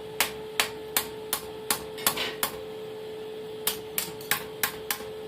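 Hand hammer striking a high-carbon steel fire striker on an anvil, about three sharp blows a second, pausing for a second or so halfway through, then resuming. A steady hum runs underneath.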